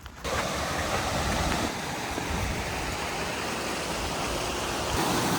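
Steady rushing of running water, as from a mountain stream or waterfall, starting abruptly just after the beginning.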